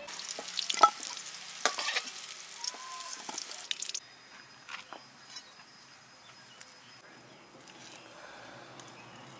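Potato pieces sizzling in hot oil in an aluminium karai, with sharp clinks and scrapes of a metal ladle as they are lifted out. The sizzling cuts off abruptly about four seconds in, leaving a quiet stretch with a few light ticks.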